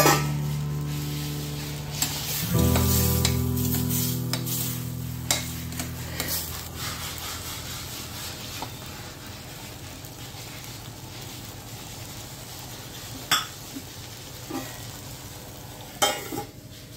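Food sizzling in pans on a gas stove: a curry in an open steel kadai and a roti on an iron tawa, a steady hiss. A sharp metallic clink comes late on, and the steel lid clatters near the end.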